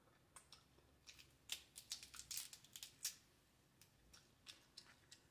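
Cooked blue crab body being pulled apart by hand: a quick run of small crackles and clicks of breaking shell and cartilage, thinning to a few scattered clicks later.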